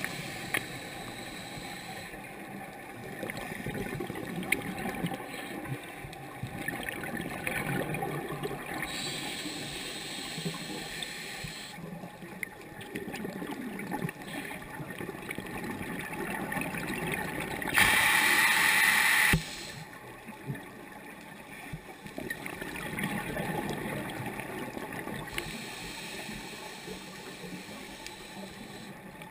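Scuba breathing underwater: regulator breaths and bubbling exhalations, heard through a camera housing. A louder rushing burst lasting about a second and a half comes about two-thirds of the way through.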